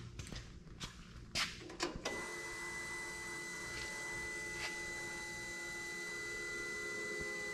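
A few clicks, then about two seconds in the Bandit chipper's Ford engine's electric fuel pump switches on and runs steadily with a high, even whine, pressurising the fuel system after a fuel filter change, before cranking.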